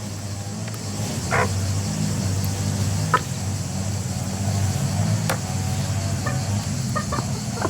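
Chickens giving a few short clucks and calls, spaced a second or two apart, over a steady low hum.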